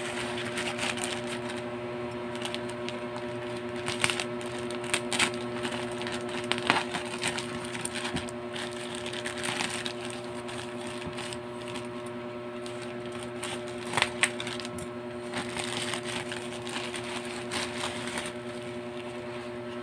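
Black plastic courier pouch being pulled open and handled by hand: irregular crinkling and rustling with sharp crackles, over a steady electrical hum.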